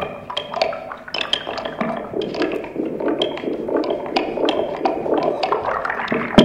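Improvised noise music from amplified sewing machines and homemade electronics: a dense run of irregular clicks and clinks over a steady noisy texture that fills out in the second half.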